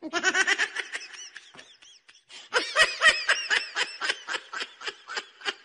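High-pitched laughter in quick staccato pulses. It comes in two bouts: a short one at the start, then a longer one from about two and a half seconds in that slows and fades out.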